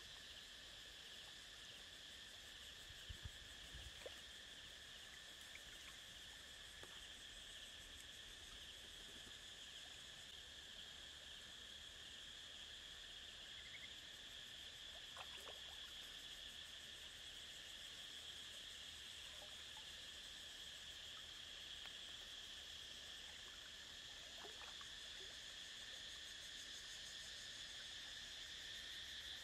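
Faint, steady insect chorus: a continuous high-pitched buzz on two pitches that never lets up, with a couple of soft low knocks about three and four seconds in.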